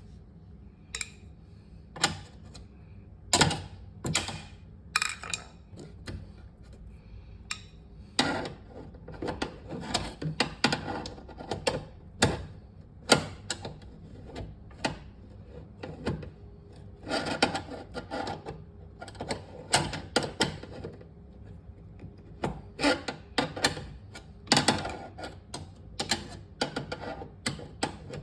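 Small flathead screwdriver clicking and scraping against the axle pin of a Whirlpool refrigerator's roller wheel assembly as the pin is pried out, in irregular clusters of sharp taps, some louder than others.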